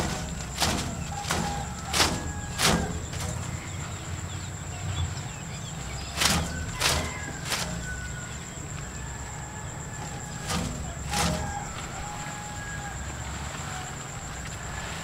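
Plastic bird-scaring streamers strung over a rice paddy, cracking and flapping as the line is jerked by hand: five sharp cracks in the first three seconds, three more about six seconds in and two near eleven seconds, over wind rumble on the microphone.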